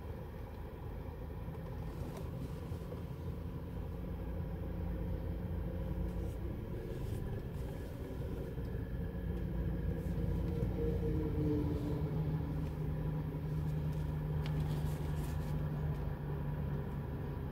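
Car engine running, heard from inside the Kia's cabin: a low, steady hum that slowly grows louder, its pitch stepping down a little about two-thirds of the way through.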